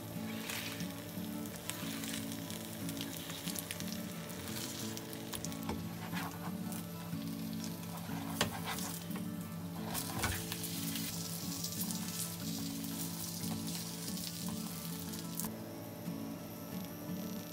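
Food sizzling in a hot frying pan, with the scrape and clack of a utensil stirring it now and then; the sizzle eases near the end.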